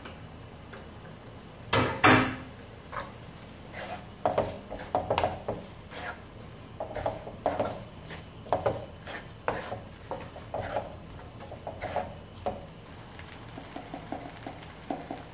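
Wooden spatula stirring and scraping noodles in a metal kadai, knocking against the pan in irregular strokes about once or twice a second. About two seconds in there is a louder clatter as fried egg is scraped off a steel plate into the pan.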